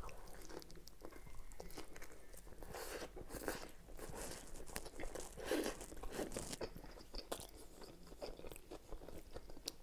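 Close-miked mouth sounds of a person biting into a Subway sub and chewing it: a string of small clicks and crunches, with slightly louder swells here and there.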